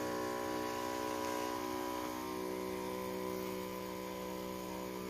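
Battery-powered knapsack sprayer's electric pump running with a steady hum while spraying through the hand lance.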